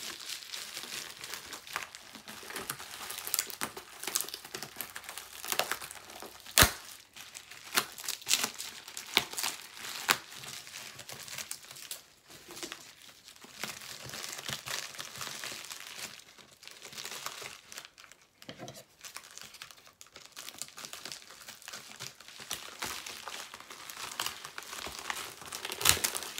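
Plastic packaging crinkling and tearing as a sealed mail package is pulled open by hand, a dense run of crackles with one sharp snap about six and a half seconds in.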